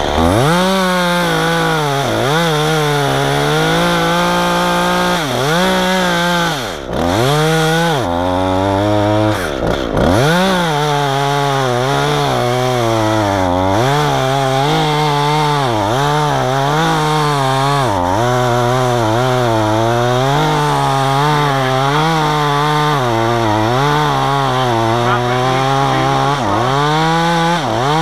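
Two-stroke chainsaw running at high revs while cutting wood. Its pitch sags under load and recovers about once a second, and twice, about 7 and 10 seconds in, the revs fall away nearly to idle before it is throttled back up.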